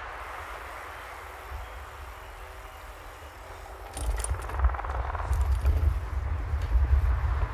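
City street noise heard from a moving bicycle: a steady hiss of traffic, then from about halfway a louder deep rumble with a few rattling clicks.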